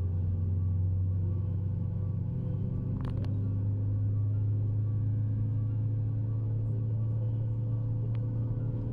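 Steady low engine drone heard from inside a moving vehicle, a deep hum with a few steady tones that step up slightly in pitch about three seconds in.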